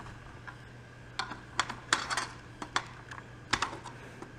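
Screwdriver working the spring-loaded mounting screws of a CPU heatsink fan, a run of small irregular clicks and taps.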